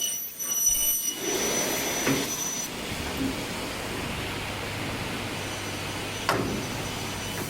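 CNC double-head aluminium-profile cutting saw with its saw motors running, a steady rushing noise with a thin high whine that stops near the three-second mark. A single sharp click comes about six seconds in.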